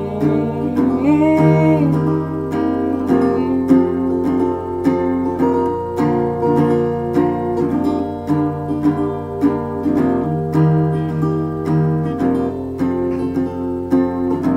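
Guitar strumming chords in a steady rhythm, the chords ringing between strokes.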